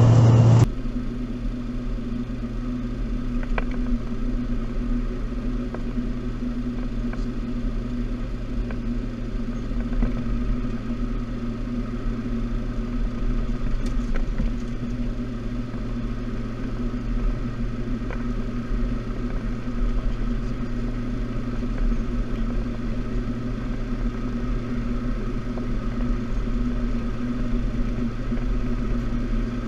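Steady in-flight cockpit noise of a Cessna Citation X business jet: a constant low hum with an even rush of air and a few faint clicks. Under a second in, a louder cabin recording cuts off suddenly.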